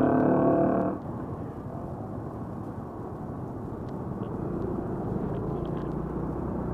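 Background music cuts off about a second in, giving way to steady road and traffic noise with a low rumble.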